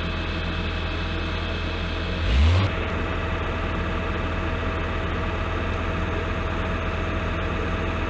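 Engine of construction machinery running steadily, a constant low hum, with one brief loud low thump about two seconds in.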